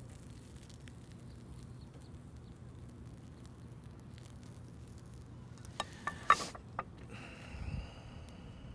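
Asparagus spears sizzling faintly on a charcoal grill. About six seconds in come a few sharp metal clacks from the tongs, one much louder than the others, then a low thump.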